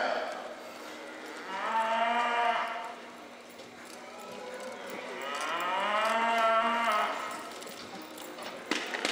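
Cattle mooing: two long moos, the second longer than the first, with a couple of sharp clicks near the end.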